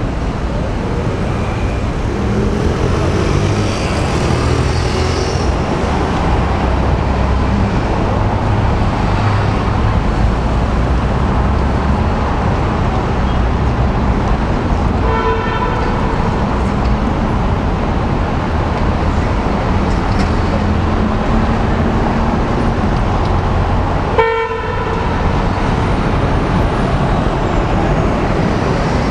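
Steady road traffic noise of cars and buses, with engines running low underneath. A vehicle horn sounds briefly twice, about halfway through and again later.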